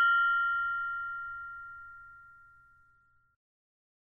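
Mindfulness meditation bell ringing out after its strike, fading steadily away over about two seconds. One high tone lingers a little longer than the rest.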